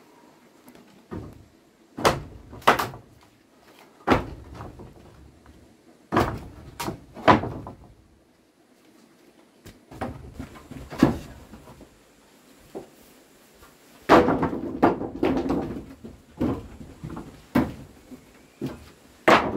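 Heavy wooden knocks and thuds, like timber being struck or set down, in irregular groups of one to three every couple of seconds, with a quicker run of knocks about two-thirds of the way through.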